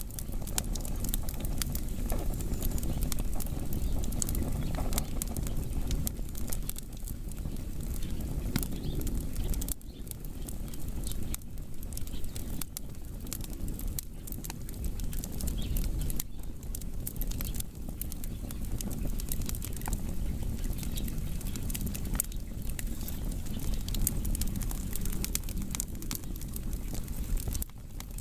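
Firewood logs burning, with frequent small crackles and pops over a steady low rumble of the fire.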